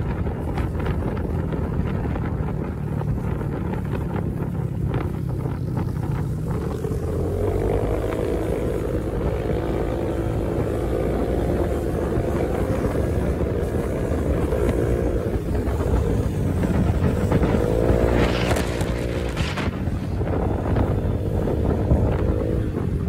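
Honda PCX 150 scooter's single-cylinder engine running underway, with wind buffeting the microphone. The engine note wavers up and down and climbs more sharply about three quarters of the way through.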